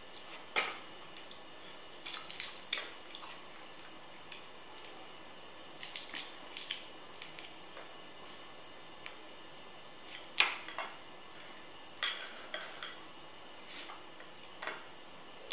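Cooked crab being broken apart by hand: sharp cracks and clicks of shell, coming in small clusters every few seconds, the loudest crack about two-thirds of the way through.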